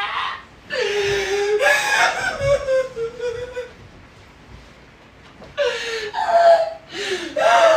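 High-pitched crying and whimpering in drawn-out, wavering wails, in two bouts with a quieter pause between.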